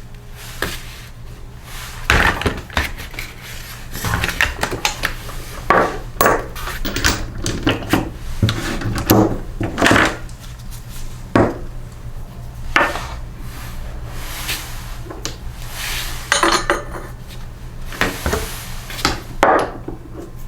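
Metal hand tools clinking and knocking against a small Briggs & Stratton engine in irregular sharp clicks, as the 15/16 in. flywheel nut is worked loose, over a steady low hum.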